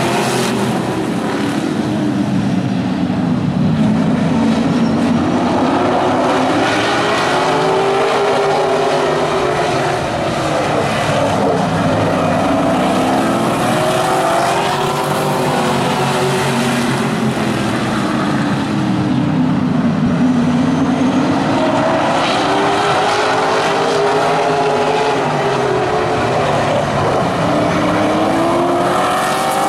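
A pack of vintage modified race cars racing on a short oval at full throttle just after the green flag. The engines rise and fall in pitch every several seconds as the cars circle the track.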